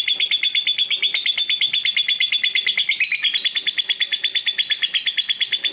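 Lovebird's 'kekek' (ngekek) song: a long unbroken run of rapid, sharp, high chirps, about ten a second, that shifts in pitch about halfway through.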